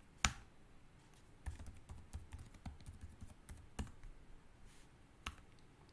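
Computer keyboard keystrokes: scattered single key clicks, the sharpest about a quarter second in, as a terminal command and a password are typed and entered.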